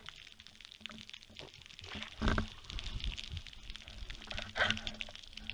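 Underwater ambience picked up by a speargun-mounted camera: a faint crackle of scattered clicks, with two louder watery rushes, one about two seconds in and one near the end.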